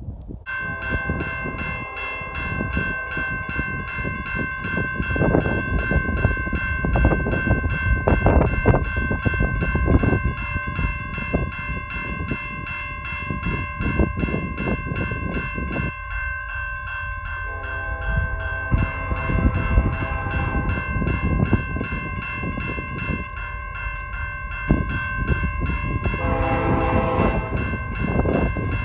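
Grade-crossing warning bell ringing rapidly and steadily as Union Pacific 1995, a Chicago & North Western heritage SD70ACe diesel locomotive, approaches with a low rumble and sounds its horn in several blasts, a long one about two-thirds through and another near the end.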